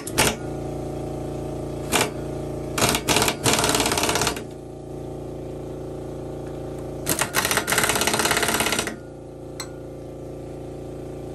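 Pneumatic impact wrench hammering in several rapid bursts, short ones near the start and longer runs of a second or more in the middle, as it runs nuts down on bolts through a steel angle bracket into timber. A steady machine hum runs underneath.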